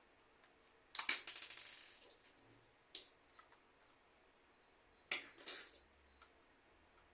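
Sharp clicks and a short rattling clatter of small hard plastic parts being handled while a Tuya Zigbee thermostatic radiator valve is taken apart. The loudest clatter comes about a second in and rattles on for about a second, followed by a single click and then two more clicks near the end.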